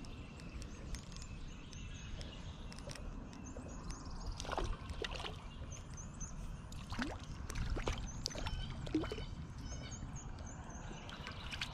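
Outdoor pond-side ambience: a steady low rumble, like wind on the microphone, with scattered light clicks and knocks and faint high chirps.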